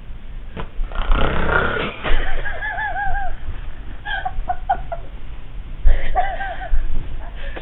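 Snoring: a rough, noisy breath about a second in, followed by a high, warbling whistle that comes again briefly near the end.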